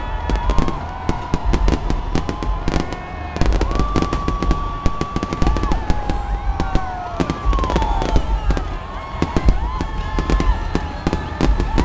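Fireworks display: a dense, continuous run of bangs and crackles over a low rumble, with long whistles that hold a pitch and then glide down.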